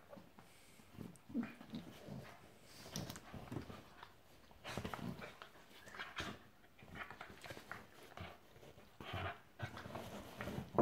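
Two small dogs play-fighting: irregular short growls and grumbles mixed with scuffling as they wrestle.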